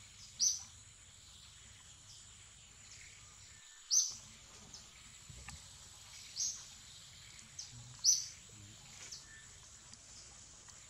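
Outdoor forest ambience: short, sharp, high-pitched chirps repeat at irregular intervals, about one to three seconds apart, over a steady high-pitched whine.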